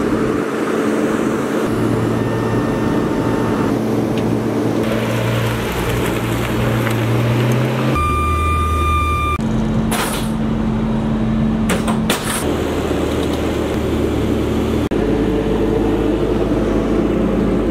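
Vehicle and machinery noise from a car transporter being unloaded: steady engine and motor hum that changes abruptly several times as clips cut. About eight seconds in, a steady high tone sounds for about a second and a half, and short hissy bursts come near ten and twelve seconds.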